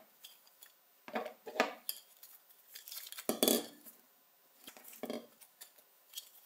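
Plastic basket strainer parts being taken apart by hand and set down on a wooden workbench: scattered light clicks and clatters, the loudest a little past the halfway point.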